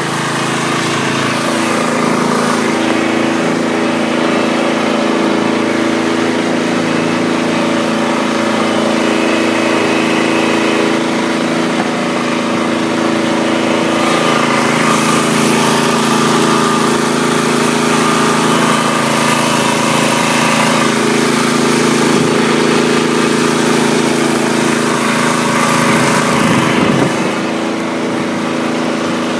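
Mud boat's engine running hard and steady as the boat pushes through a swamp channel, easing off slightly near the end.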